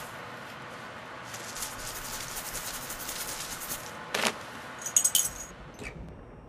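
A dense shaking rattle lasting a couple of seconds, then a few sharp jingling strikes, the loudest about five seconds in.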